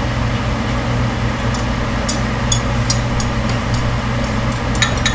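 A steady mechanical hum of a running fan, with light, irregular clicks of a metal knife scraping and tapping inside a small glass cup as hot liquid plastic is cleaned off its sides.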